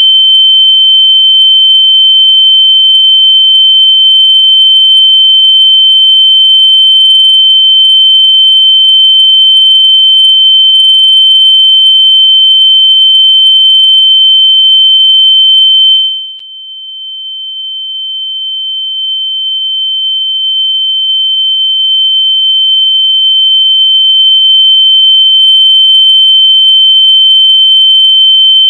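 Continuous loud, high-pitched pure electronic tone at one steady pitch, played to help locate lost AirPods. About sixteen seconds in, its volume drops sharply and then swells slowly back to full over the next several seconds.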